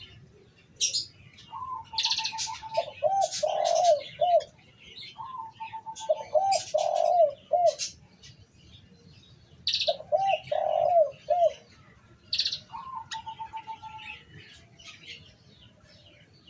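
A caged spotted dove (tekukur) singing: a held note followed by a quick run of rounded coos, repeated every few seconds. Short high chirps from other birds fall in between.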